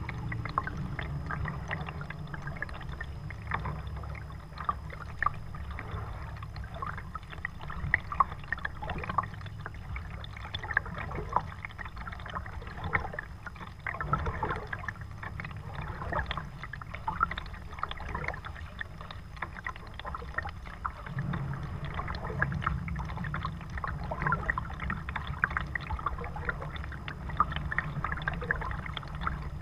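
Kayak paddle strokes: water dripping and trickling off the blades and splashing lightly by the hull, in an irregular patter, over a steady low rumble.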